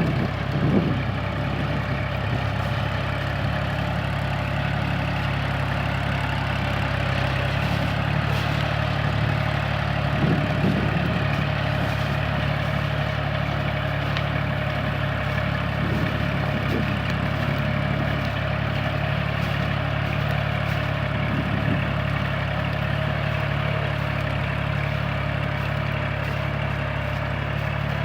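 Kubota tractor's diesel engine running steadily, a low even drone that hardly changes in level.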